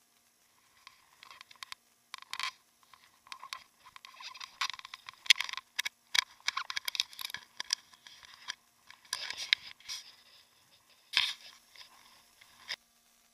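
Handling noise on an action camera in its waterproof housing: irregular scraping, clicking and crackling as it is moved and knocked about, heaviest in the middle, with a sharp burst near the end.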